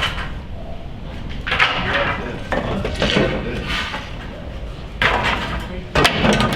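Indistinct voices with a few sharp knocks and clatter over a steady low rumble.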